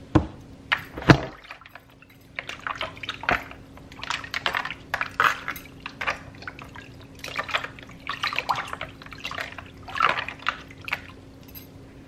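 Hands sloshing and splashing water in a plastic bowl while rubbing raw pork ribs, in irregular bursts of swishing and dripping. A faint steady hum runs underneath.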